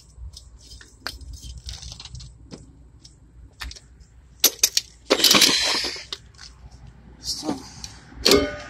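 Scattered light clicks and metallic clinks of tools and hand work. About four and a half seconds in come three sharp clicks, then about a second of loud scraping or rustling noise, with two shorter bursts near the end.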